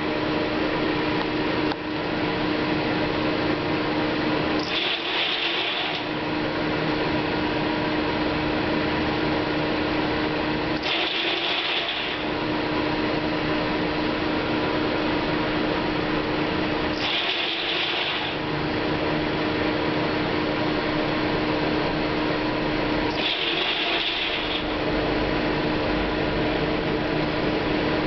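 Corn grain dryer machinery running steadily with a constant hum. About every six seconds a higher-pitched sound lasting about a second cuts in, while the low rumble drops away, in a regular repeating cycle.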